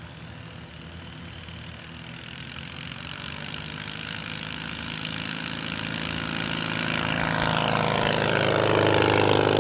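Hummel Bird ultralight's half-Volkswagen two-cylinder engine and propeller running at takeoff power, growing steadily louder as the plane rolls toward the microphone and lifts off. Its pitch rises a little in the last few seconds.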